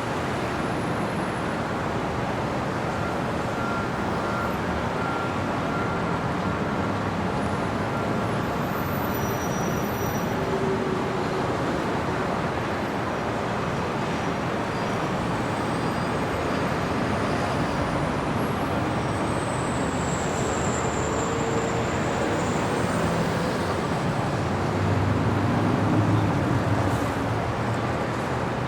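Steady city street traffic: a continuous wash of cars and engines on the road. A low engine rumble swells briefly near the end, and a faint high squeal is heard about two-thirds of the way through.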